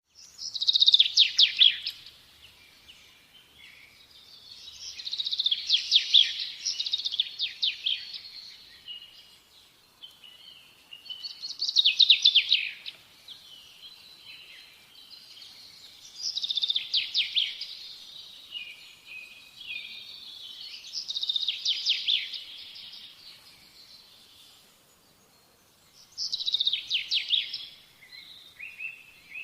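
Birdsong: a bird repeating a bright, quick-noted song phrase of two to three seconds about every five seconds, six times, with softer twittering between.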